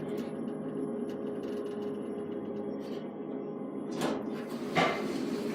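Steady hum inside a lift car, with a faint steady tone, and two brief sharp sounds about four and five seconds in.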